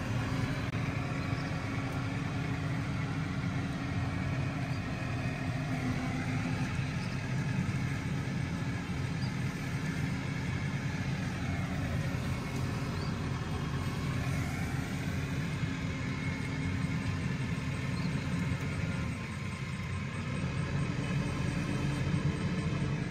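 Diesel engine of a semi truck running steadily under way, heard from inside the cab, its pitch rising and falling a few times as the revs change.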